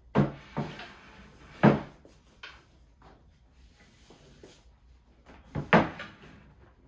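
A few sharp clunks and knocks of things being handled in a kitchen: two near the start, a louder one a little later, and a quick double knock near the end.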